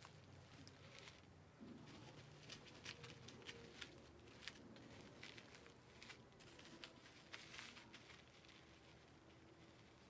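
Faint crinkling and crackling of a vinyl stencil sheet being pressed and smoothed by hand onto a coir door mat, many small irregular crackles.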